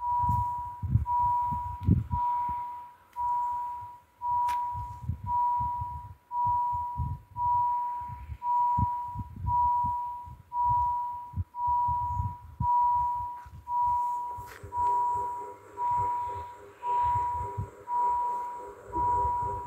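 Level crossing warning signals ringing about once a second, each stroke a clear high tone that starts sharp and fades. About fourteen seconds in, a steady hum joins as the barriers start to lower.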